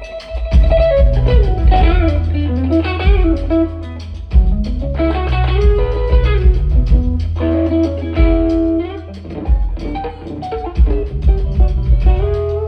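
Live rock band playing an instrumental stretch: an electric guitar plays lead lines with bent, sliding notes over steady bass and drum hits.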